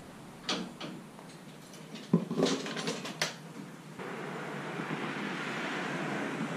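Several sharp knocks and clanks of metal gear being handled at a boat trailer's tongue, the loudest about two to three seconds in. From about four seconds on, a steady hiss.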